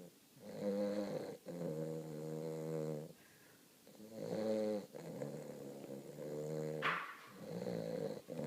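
Weimaraner puppy snoring in its sleep: a series of about five pitched snores, each a second or so long, with a brief sharp noise about seven seconds in.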